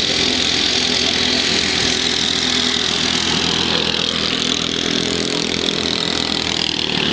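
Racing ride-on lawnmower engines running steadily.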